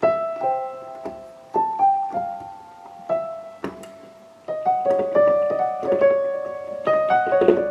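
Yamaha PSR-S670 arranger keyboard playing its grand piano voice: a simple melody of single notes, one after another, each struck and then fading.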